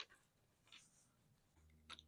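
Near silence, with a faint click at the start and a couple of faint clicks near the end.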